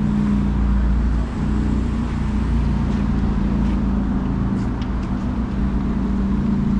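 Street traffic: a motor vehicle's engine running steadily close by, a low, even hum, with faint light ticks over it.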